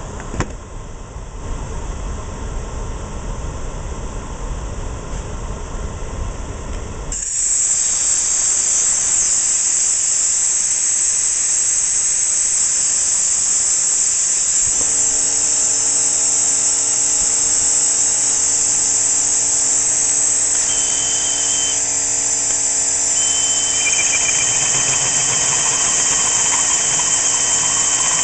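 A shop fan runs with a low rumble. About a quarter of the way in, compressed air starts hissing loudly and steadily from an air nozzle aimed into the cut to blow out shavings. About halfway, a DeWalt drill's motor spins up a Diablo carbide-tipped hole saw on steel plate, and a high, thin squeal of the saw cutting the steel comes in later and breaks off once.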